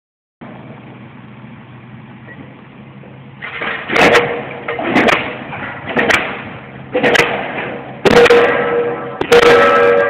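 Diesel pile hammer firing and striking a pile about once a second, each blow a sharp bang with a metallic ring. The blows get louder over the last few seconds. A steady low machine hum runs under them, and alone before the blows begin about three and a half seconds in.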